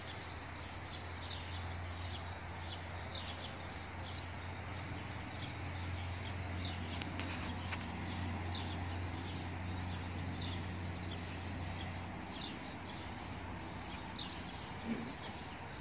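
Small birds chirping over and over, short high chirps coming several a second, over a steady low hum that stops about twelve seconds in.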